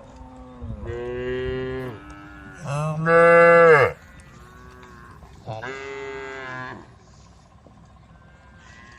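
Cows mooing: three long calls, the second the loudest, with fainter moos between them.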